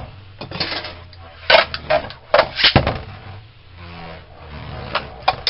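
Two Beyblade Burst spinning tops, Union Achilles and Erase Devolos, whirring in a plastic stadium. A run of sharp clacks comes as they strike each other and the stadium, the loudest between about one and a half and three seconds in, and two more near the end.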